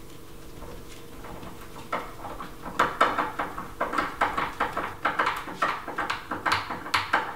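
Screwdriver turned by hand, driving a screw through a metal slide latch into a wooden gate: a run of quick, irregular clicks and creaks that starts about two seconds in.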